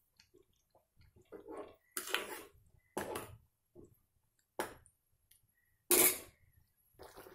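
Steel spoon stirring a thin curry in an aluminium pot: several short scrapes and knocks of the spoon against the pot with liquid sloshing, the loudest about six seconds in.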